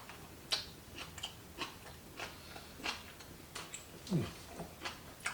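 A person chewing duck gizzard meat, mouth sounds clicking two to three times a second. A brief falling hum about four seconds in.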